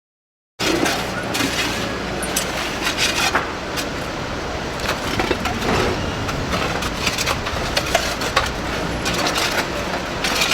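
Street-works ambience starting suddenly about half a second in: a steady low engine hum with frequent short metallic clinks and knocks over it.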